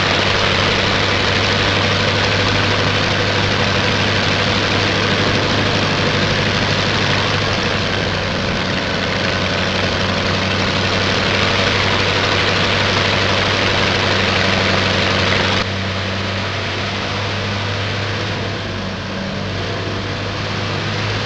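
Piston engine of a propeller biplane running steadily, a constant low drone under a loud hiss. About three-quarters of the way through, the hiss drops suddenly and the engine note carries on more quietly.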